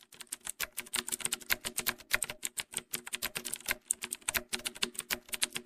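Typing sound effect: a rapid, irregular run of keyboard key clicks, many a second, over a faint low hum.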